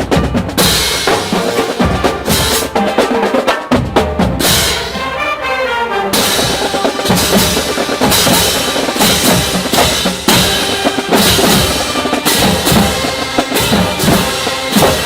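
Marching band drumline playing a fast, loud rhythm on snare and bass drums.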